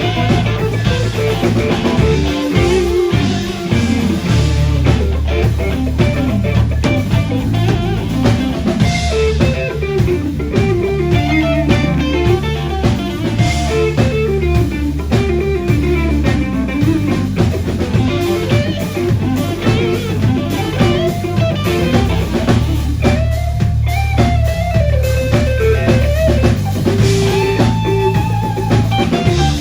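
Live blues-rock band playing: an electric guitar solo with bent, sliding notes over bass and a drum kit.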